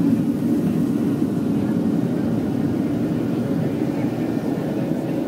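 Steady low drone of jet engines and airflow heard inside a jet airliner's passenger cabin, from a window seat.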